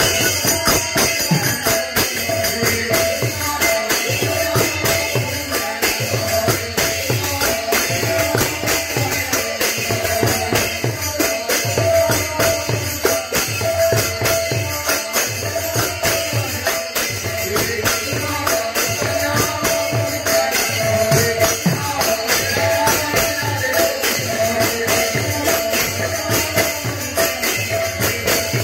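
Live Odia kirtan music: large brass hand cymbals clashing in a fast, steady rhythm over a barrel-shaped khol drum.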